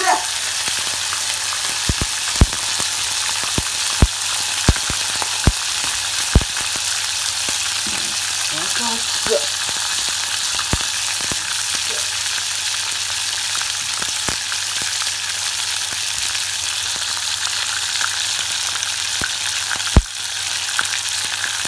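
Whole Japanese freshwater crabs (sawagani) deep-frying in a small pot of oil: a steady high sizzle with scattered sharp pops, the loudest about 20 seconds in.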